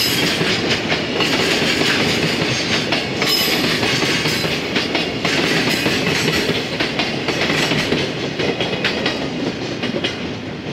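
Container flatcars of a JR Freight train rolling past, wheels clattering over rail joints in a steady clickety-clack with a rumble underneath. The sound drops off near the end as the last wagon goes by.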